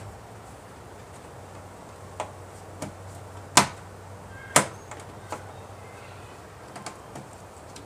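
Sharp plastic clicks and knocks as a cabin air filter is worked into its plastic housing: two loud clicks about a second apart near the middle, with lighter clicks before and after.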